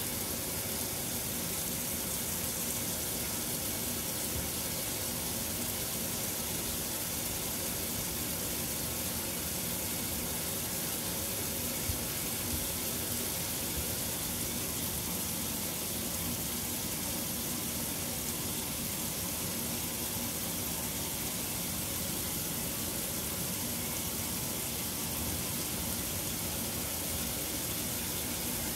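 KitchenAid Superba KAWS850LT1 top-load washing machine filling: a steady rush of water pouring into the tub over a full load of clothes.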